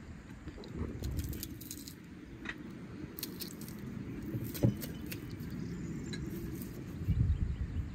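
Metal garlic press clicking and clinking as it is loaded and squeezed, with one sharper knock a little past halfway.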